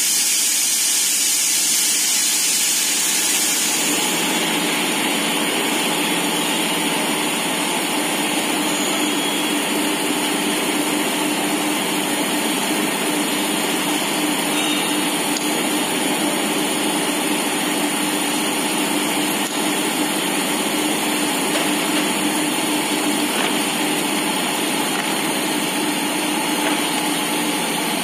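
Factory machinery running with a steady hum and a low tone. A high hiss over it stops about four seconds in.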